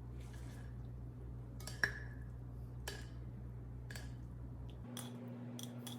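A utensil clinking lightly against a bowl half a dozen times as instant noodles are stirred through their sauce, the loudest clink about two seconds in. A steady low hum runs beneath.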